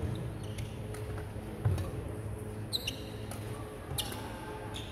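Badminton rally: sharp clicks of rackets striking the shuttlecock, the loudest about four seconds in, with a low thud of a footfall on the wooden court and a brief shoe squeak.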